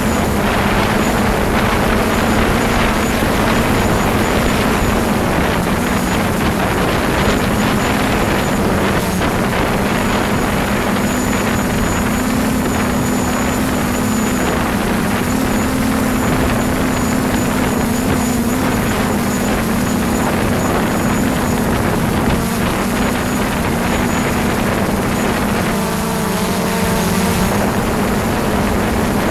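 DJI Mavic quadcopter's propellers buzzing steadily, the hum's pitch drifting slightly up and down as the motors adjust, with a faint high whine over a rush of air.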